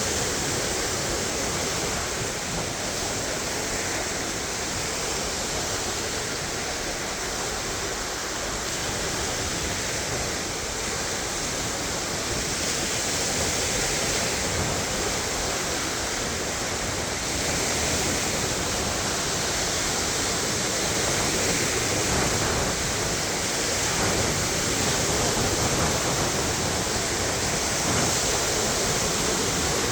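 Lake Michigan waves washing onto the beach, a steady rush of surf that swells and eases every few seconds.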